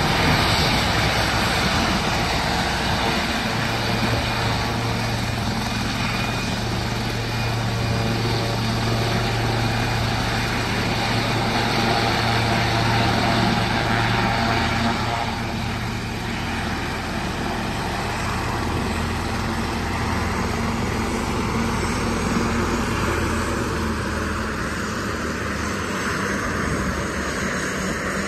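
Sikorsky S-76 helicopter running on the pad after landing: steady turbine and rotor noise with a low hum that eases a little about halfway through.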